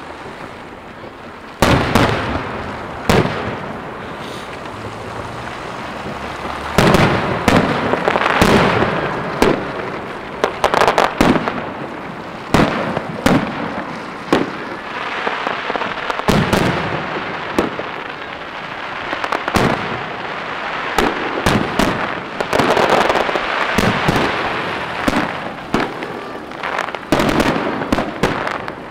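Aerial firework shells bursting in an irregular series of sharp bangs, with stretches of dense crackling between them.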